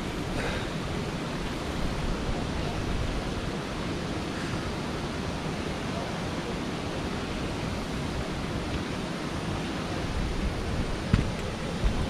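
Steady rushing outdoor noise with a low rumble, with a couple of light knocks near the end.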